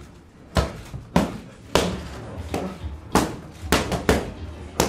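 Boxing gloves striking focus mitts in quick combinations: about eight sharp, loud smacks at uneven spacing, some coming in quick pairs.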